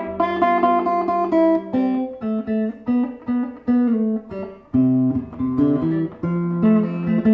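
1954 Harmony H44 StratoTone guitar being picked, a tune of single notes and chords, play-tested after its warped neck was straightened with carbon fiber rods.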